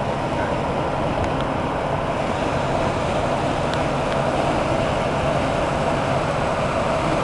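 Steady road and engine noise inside a moving tractor-trailer's cab, an even rumble with no breaks.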